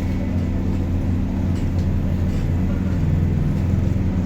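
A motor engine running steadily, a low, even drone.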